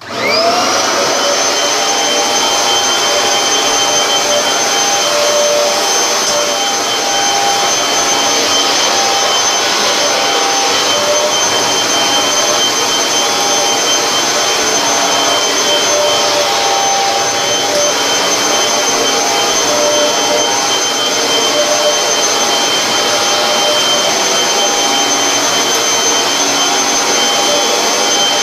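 Kirby vacuum cleaner switched on, its motor spinning up within half a second to a steady high-pitched whine, then running steadily.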